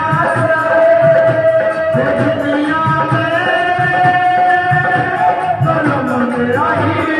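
A woman singing a devotional bhajan into a microphone through a sound system, over a steady hand-drum beat and other accompaniment, with long held notes.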